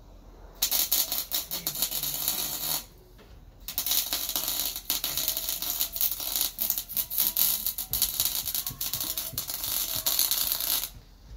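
MIG welder arc crackling in two runs: a short burst of about two seconds, a brief pause, then a longer run of about seven seconds.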